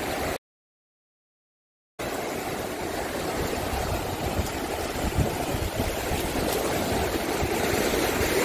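Sea surf washing in over sand, a steady rush of foaming water that grows a little louder toward the end. The sound cuts out to complete silence for about a second and a half near the start.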